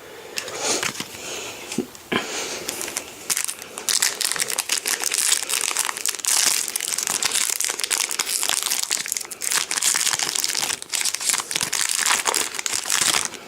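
Foil trading-card booster-pack wrapper crinkling and crackling as it is handled and worked open, a long run of dense crinkles and small crackles.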